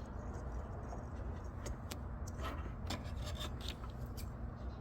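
Faint rubbing and scattered small clicks of hands handling thread and parts on a home sewing machine, over a steady low hum.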